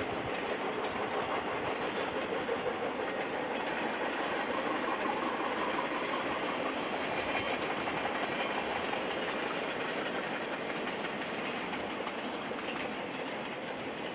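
Steady rolling noise of a long container freight train's cars passing on the rails, easing slightly near the end.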